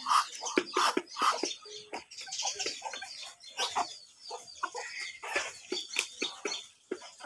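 Hen clucking as it pecks grain from a plastic feeder tray: a rapid, irregular run of short taps and clucks.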